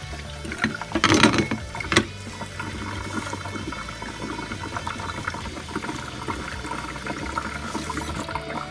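Water running over boiled eggs in a perforated plastic colander, with two louder splashing bursts about a second and two seconds in.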